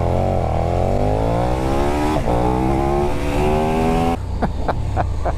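KTM 1290 Super Duke R's 1301cc V-twin accelerating hard from a standing launch, its pitch climbing, dipping briefly at an upshift about two seconds in, then climbing again. About four seconds in, the steady engine note gives way to a rougher, irregular pulsing.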